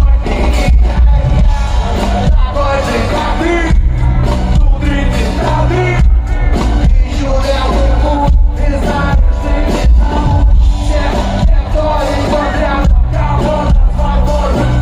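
Live hip-hop music played loud through a festival sound system: a heavy, steady bass beat with a vocal over it.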